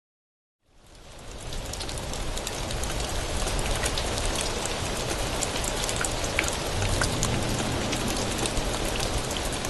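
Steady rain falling, with scattered drops ticking on surfaces; it fades in from silence about a second in.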